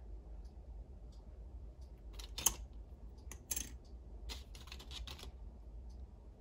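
Small plastic pieces of a Hello Kitty bakery playset clicking and tapping as they are handled and set down. There is a sharp tap about two and a half seconds in, then a quick cluster of clicks a couple of seconds later, over a steady low hum.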